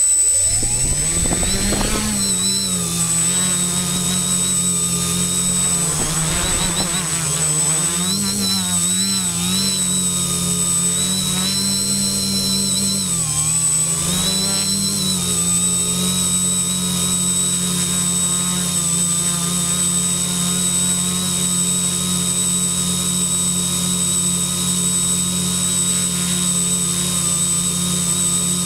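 Quadcopter's electric motors and propellers spooling up from rest over about two seconds, then hovering with a steady buzz whose pitch wavers as the self-levelling flight controller corrects, settling to an even pitch after about sixteen seconds. A steady high whine runs over it.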